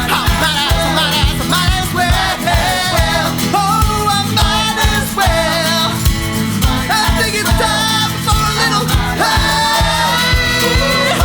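Band music: singing over a steady drum beat.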